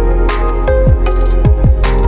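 Background music with a steady electronic beat: deep kick drums that drop in pitch, and a sharp snare hit twice, about a second and a half apart.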